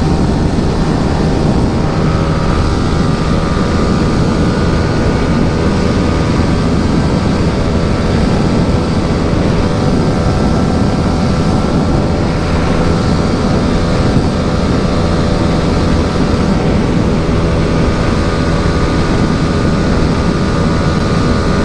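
Yamaha R15 V3's single-cylinder engine, through an Akrapovic exhaust with the dB killer fitted, held at steady high revs under full throttle, with wind rushing over the microphone. The engine note stays flat and does not climb: the bike is topping out near its top speed.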